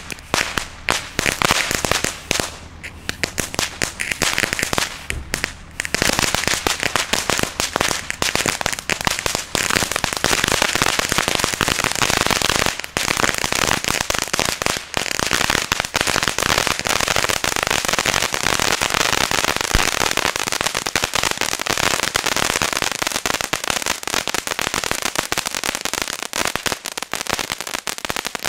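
Lonestar crackling volcano (ground fountain firework) burning: a rapid stream of sharp crackles and small pops. It comes in scattered bursts for the first few seconds, then from about six seconds in it turns into a dense, unbroken crackle.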